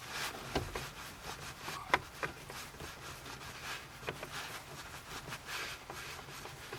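Light clicks, taps and rubbing of hand tools and plastic trim as a screw is taken out and a steering column cover is worked loose, with one sharper click about two seconds in.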